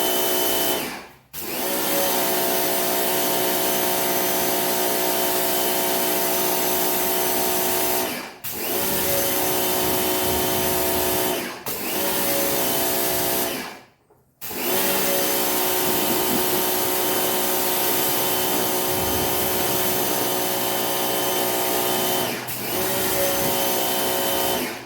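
Ryobi pressure washer running with its spray hissing: a steady motor whine over the hiss. It cuts out briefly about five times, for about a second the longest time, picks up again each time, and stops at the end.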